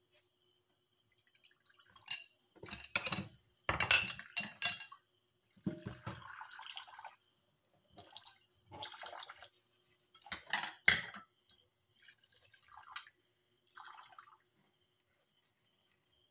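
Plastic plates, bowls and a wooden spoon and chopsticks clattering and knocking in a stainless steel sink, in short bursts. Tap water splashes into a plastic bowl in brief runs between the clatters.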